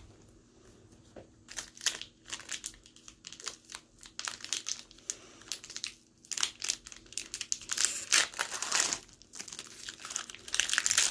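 Foil Pokémon booster pack wrapper crinkling and tearing as it is handled and ripped open: runs of quick crackles, loudest near the end.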